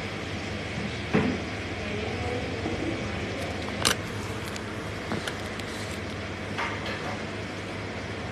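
Steady background noise broken by a few short knocks and clicks. The sharpest click comes about four seconds in, as a hand handles the phone that is recording.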